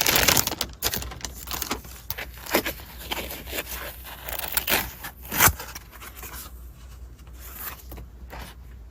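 Packaging being handled and opened by hand: rustling, scraping and tearing, loudest at the start, with a sharp knock about five and a half seconds in, then lighter handling.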